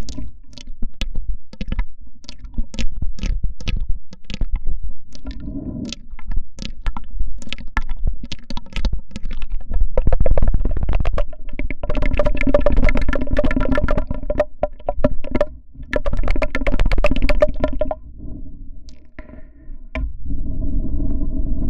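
Foley sounds of a washing machine's drain hose: a run of quick sharp clicks, about three a second, then a loud rumbling drone with steady ringing tones that breaks off briefly near the end and starts again.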